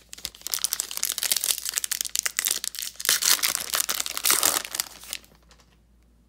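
Foil wrapper of a 2019 Panini Playoff football card pack crinkling and tearing as it is opened by hand, a dense crackle that stops about five seconds in.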